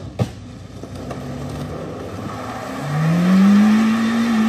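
The Honda Fit's four-cylinder engine revs hard; about three seconds in the pitch climbs steeply and holds high while the front wheels spin on the dirt and throw up smoke. A single sharp click comes near the start.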